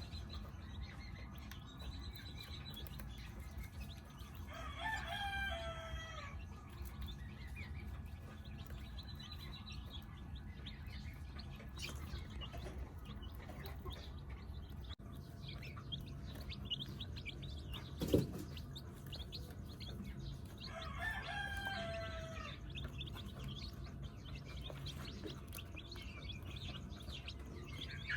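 A rooster crowing twice, about five seconds in and again about twenty-one seconds in, each crow a stepped call falling in pitch, over a steady background of chicks peeping. A single thump about eighteen seconds in is the loudest sound.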